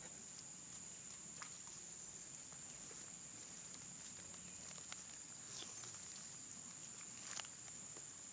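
Quiet riverside ambience: a steady high-pitched insect drone over a soft hiss, with a few faint ticks.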